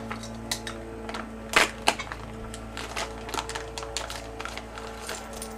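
Packaging being opened by hand: scattered crinkles and clicks, with two louder snaps about a second and a half in, over faint background music.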